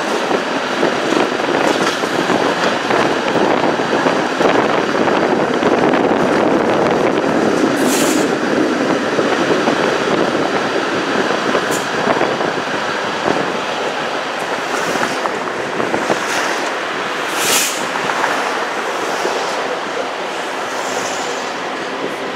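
Streetcar rolling along its street track, heard from aboard: a steady rumble of steel wheels on rail, with a few brief high-pitched noises, getting quieter towards the end.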